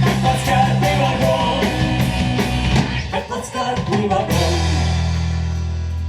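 A live rock band plays an instrumental passage on drum kit, electric guitars and bass guitar, with a steady drum beat. About four seconds in the drums stop on a final hit and the band's chord is left ringing, slowly fading.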